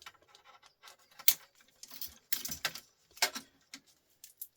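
Irregular clicks, taps and light clatter of small hard parts being handled and knocked together while a record player is dismantled, with a few louder knocks about a second in, just past two seconds, and past three seconds.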